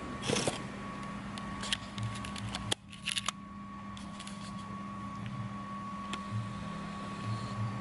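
Scattered plastic clicks, snaps and short scraping crackles from prying open the 12 V battery pack of a cordless drill, with a steady faint electrical hum underneath.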